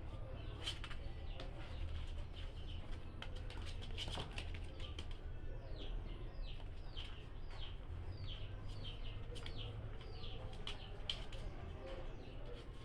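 Newborn puppies squeaking: a run of short, high cries that each slide downward, about two a second, through the middle, with scattered small clicks and a low steady hum underneath.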